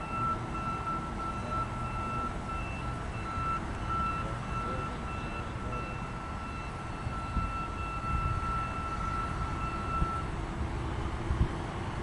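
Freight cars rolling slowly through a rail yard: a low rumble, with a steady high-pitched tone over it that stops about ten seconds in, and a few knocks near the end.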